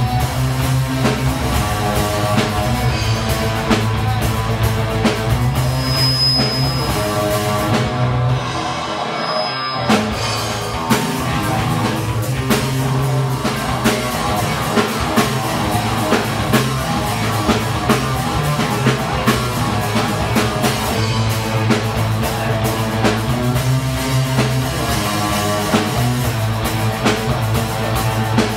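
Rock band playing, with electric guitar and drum kit keeping a steady beat. About eight seconds in, the bass and drums drop out for a moment, then the beat comes back.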